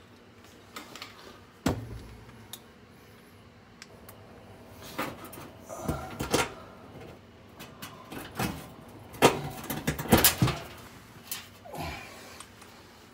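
Irregular clicks, knocks and rubbing from hands at work as an oven heating element is screwed back into place, with the phone brushing against arm and shirt; the knocks cluster loudest about nine to ten seconds in.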